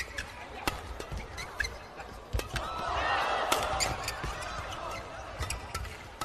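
Badminton doubles rally: sharp racket strikes on the shuttlecock every second or so, with shoes squeaking on the court. A swell of crowd noise rises about a third of the way in and dies down again.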